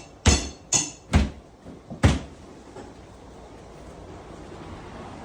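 Four heavy knocks in the first two seconds, demolition blows against drywall glued to a 2x6 frame, then only a low steady background.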